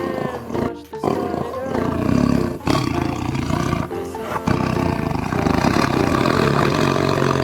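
Tiger roaring and growling in several long, rough roars, over background music.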